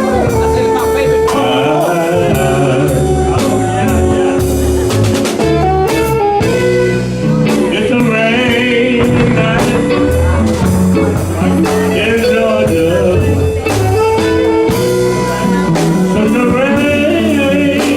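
Blues-style music with guitar and a wavering lead melody line.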